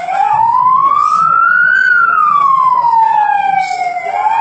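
Emergency vehicle siren in a slow wail, its pitch rising for about two seconds and then falling for about two seconds, twice over.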